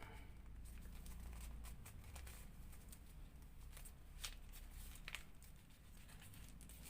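Faint rustles and crinkles of origami paper being opened out and creased by hand, with a few sharper paper clicks about four and five seconds in, over a low steady hum.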